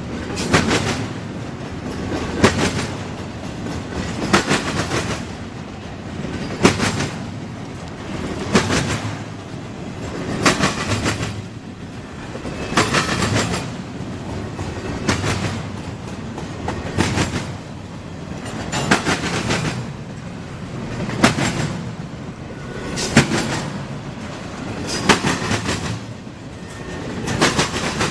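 Double-stack intermodal freight train rolling past, with a steady rumble and the wheels clattering in a cluster of clicks about every two seconds as each car goes by.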